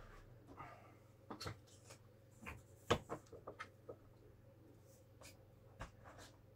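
Handling noise: a scattered series of light knocks, clicks and rubs as a floor hand pump's hose is picked up and brought to an inflatable vinyl toy. The sharpest knock comes about three seconds in.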